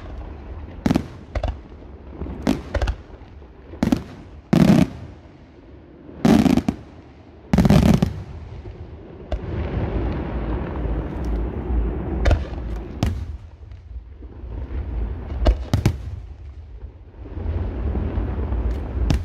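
Aerial firework shells bursting: about a dozen sharp bangs, the three loudest and longest in the first half, with stretches of low rumble and hiss between them.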